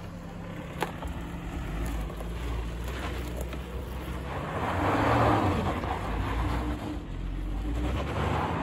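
Suzuki Jimny's 1.5-litre four-cylinder petrol engine pulling the 4x4 up a steep sandy slope. It runs steadily, then works harder and louder about five seconds in.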